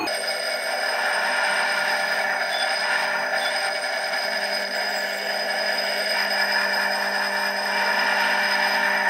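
Watch-case lapping machine running: the spinning lapping disc and its motor give a steady hum and whine, with a continuous grinding hiss as the watch case, clamped in a lapping vise, is pressed against the disc. A low hum grows stronger about four seconds in.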